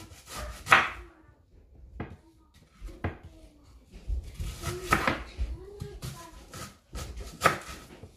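Kitchen knife slicing an onion on a wooden cutting board: irregular knocks as the blade hits the board, the loudest about a second in and again near the end.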